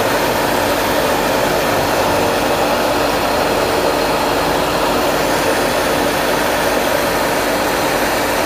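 Francis turbine test rig running under brake load: a loud, steady hum of the supply pump and the water driving the turbine, with a few steady tones in it.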